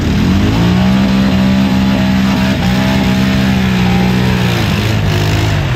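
ATV engine revving up and held at high revs while the quad is bogged in deep mud, then dropping back near the end.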